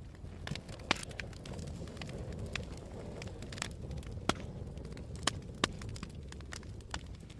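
Wood fire burning in a fireplace: a low steady rumble with scattered sharp crackles and pops, the loudest about a second in and several more between four and six seconds.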